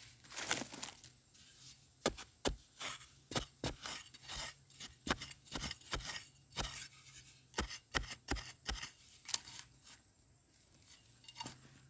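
A hand digging tool chopping and scraping into dry soil and roots around wild yam tubers: irregular sharp strikes, about one to two a second, that stop near the end.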